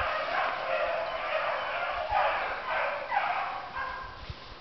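A pack of rabbit dogs baying and yelping together, many voices overlapping, as they run a rabbit's trail through the brush. The cry fades somewhat near the end.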